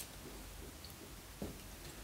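Clear slime squelching softly as it is squeezed out of a plastic bag into a glass bowl, with small sticky pops and one sharper click about one and a half seconds in.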